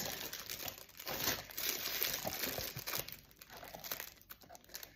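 Clear cellophane treat bag crinkling in irregular crackles as it is handled and the tie at its neck is worked loose, louder in the first couple of seconds and fainter after.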